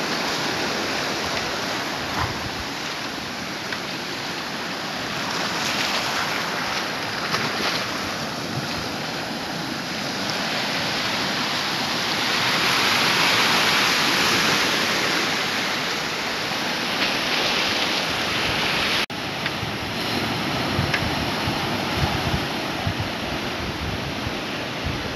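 Sea surf breaking and washing over shoreline rocks, a steady rushing that swells to its loudest surge about halfway through. It drops out for an instant a little after two-thirds in, and in the last few seconds wind buffets the microphone with low thumps.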